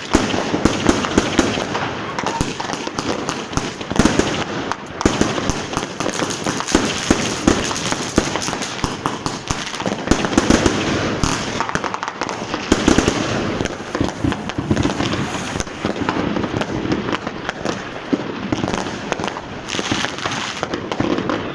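Dense, continuous firework bangs and firecracker cracks, many overlapping, with louder single reports standing out every second or two.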